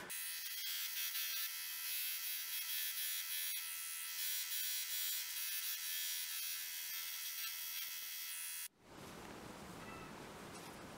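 Belt grinder running with a steady high whine and hiss as a small steel spacer is ground to shape against the belt. The sound cuts off suddenly about three-quarters of the way through, leaving only faint room tone.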